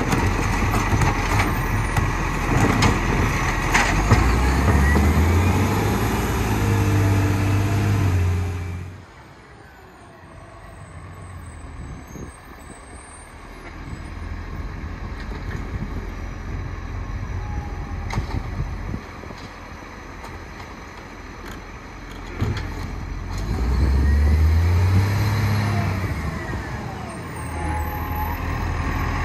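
Garbage truck engine revving up in steps and holding high, then dropping back, twice: from about four seconds in and again after about twenty-three seconds. In between it is much quieter.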